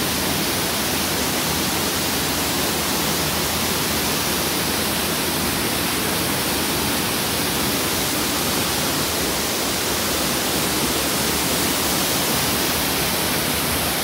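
Waterfall pouring into a rocky plunge pool close by: a steady, unbroken rush of falling water.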